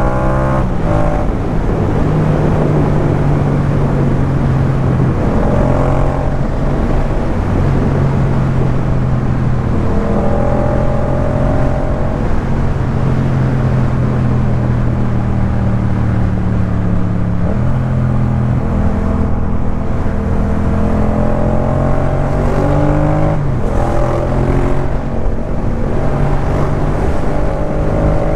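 A Yamaha MT-07's 689 cc parallel-twin engine plays through a Jeskap K4 full exhaust system while the bike is ridden. The revs climb several times, around six and ten seconds in and again near the end, with steadier running and slowly sinking revs between.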